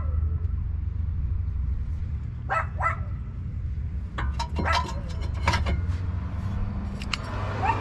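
A dog barks twice in quick succession, then metal clinks as the rusty brake caliper bracket is handled and fitted against the new rear brake rotor, over a steady low hum.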